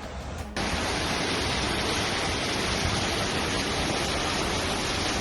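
Rushing floodwater: a steady, dense rush of water that cuts in abruptly about half a second in.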